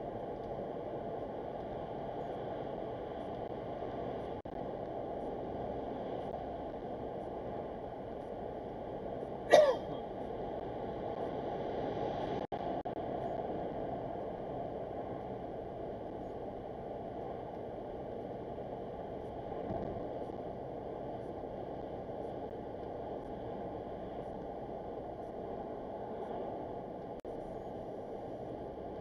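Steady road and engine noise of a car, heard from inside the cabin as it drives through a road tunnel. A single short, loud burst stands out about ten seconds in.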